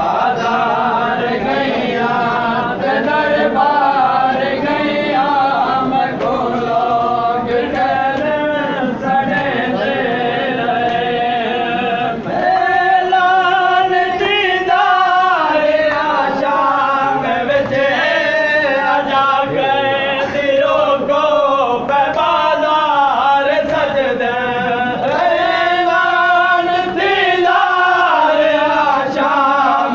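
A group of men chanting a noha, a Shia mourning lament, in unison: loud and continuous, with a short dip and a new loud phrase about twelve seconds in.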